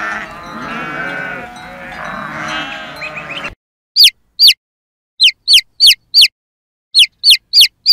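A herd of goats bleating, many overlapping calls, cut off suddenly about three and a half seconds in. A chicken chick then peeps: short, high, rise-and-fall chirps, two or three a second, with silence between them.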